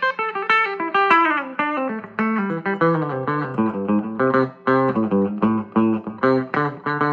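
Electric guitar with DeArmond goldfoil pickups played through a small 5-watt tube amplifier and a 10-inch Cannabis Rex speaker. Single plucked notes in a quick run fall in pitch about a second in, followed by a busy pattern of low and high notes.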